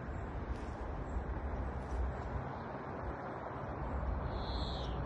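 Steady outdoor background noise with a fluctuating low rumble. About four seconds in there is a short high-pitched squeak that falls slightly in pitch.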